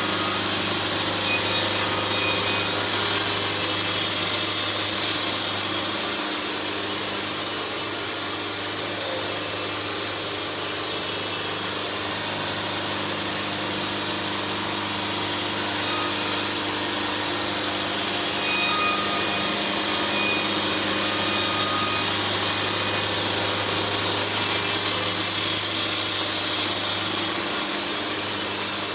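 A sawmill running steadily as it cuts through a log, a constant hum under a loud hiss of sawing and sawdust.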